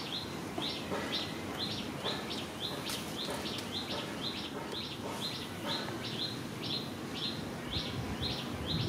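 A small bird chirping over and over at an even pace, about two or three short high chirps a second.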